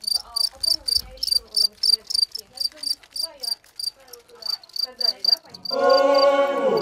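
African crickets chirping steadily, short high chirps at about four a second. About five and a half seconds in, loud sustained droning chant-like music comes in over them.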